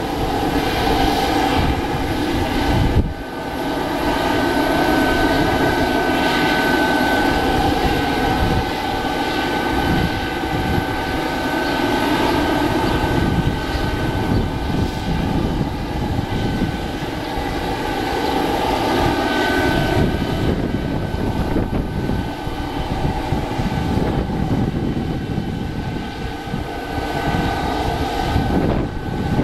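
Boeing 767-300 freighter's jet engines running loud and steady: a broad rush with a high whine held above it.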